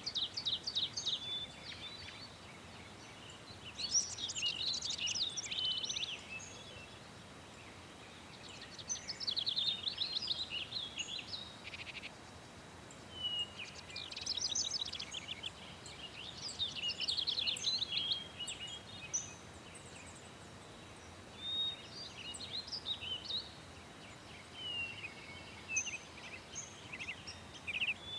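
Songbirds singing: bouts of rapid, high chirps and trills a few seconds long, coming every few seconds, over a faint steady background hiss.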